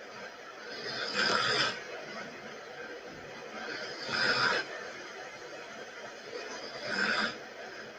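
A person snoring, three breathy snores about three seconds apart.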